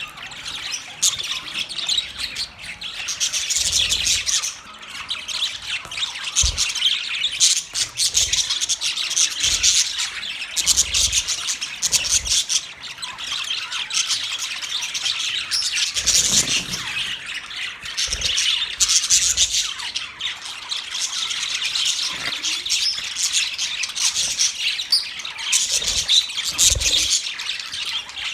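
Pet budgerigars chattering continuously, a dense mix of overlapping chirps, warbles and squawks, with occasional soft low thumps.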